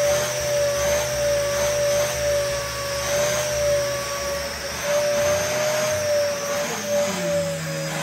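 Red bagless upright vacuum cleaner running with a steady high motor whine while its hose wand is worked over sofa cushions. A lower, wavering tone joins it near the end.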